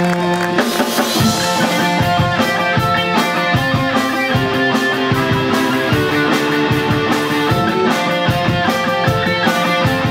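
Live rock band playing: electric guitar chords over a drum kit with bass. A held chord gives way about half a second in to the full band with steady drum hits.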